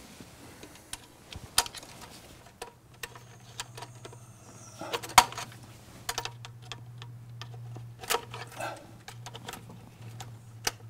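Scattered clicks, snaps and light metallic knocks as a Mercedes diesel's throttle and cruise-control linkage is worked by hand and with a tool, its ball-socket ends being unclipped. The loudest is a sharp snap about five seconds in.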